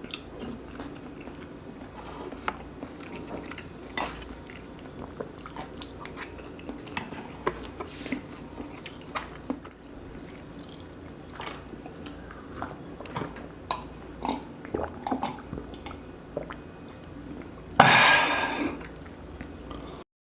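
Close-miked eating sounds: chewing braised pork and kimchi with rice, with scattered short clicks of cutlery against dishes. Near the end there is a louder noisy sound lasting about a second, then the sound cuts off abruptly.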